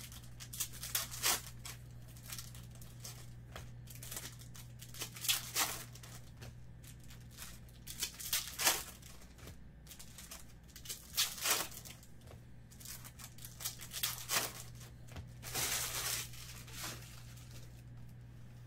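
Foil trading-card pack wrappers being torn open and crinkled, with cards handled and stacked, in irregular short bursts over a steady low hum.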